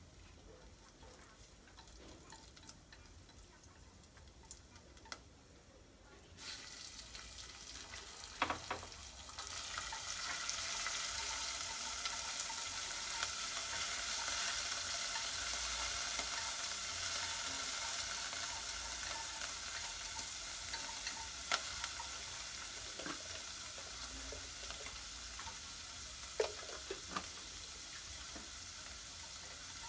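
Minced garlic sizzling softly in hot oil in a stainless steel pot; about six seconds in, shrimp go into the oil and the sizzling jumps to a loud, steady hiss that eases off slowly. Wooden chopsticks stir and now and then tap against the pot.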